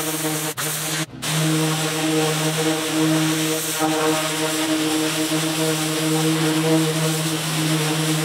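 Pressure washer running steadily: a motor hum with a high-pressure water spray hissing against pavers and weeds. Two brief dropouts come about half a second and one second in.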